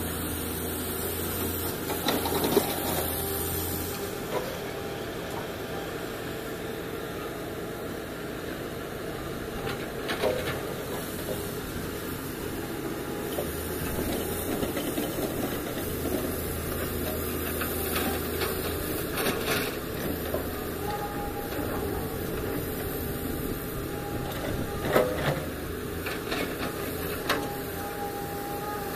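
Heavy diesel machinery running steadily as an excavator loads a dump truck, with a few sharp knocks and clatters scattered through, the loudest about two seconds in and near the end.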